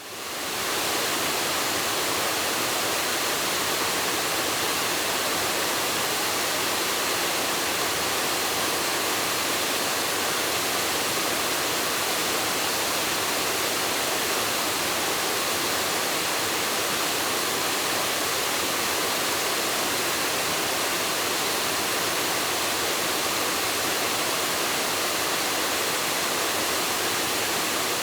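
Waterfall rushing, a steady, even roar of falling water with no change in level.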